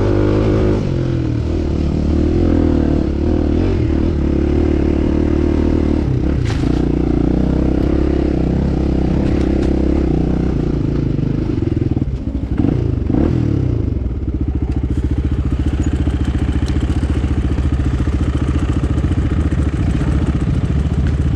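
Enduro motorcycle engine running under a rider on an off-road trail, its note rising and falling with the throttle. Around twelve seconds in it dips briefly, then settles into a steady low beat.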